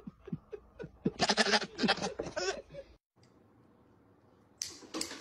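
Goat bleating, several short wavering calls in a row, the loudest about a second in. After a brief silence, a short scratchy noise near the end.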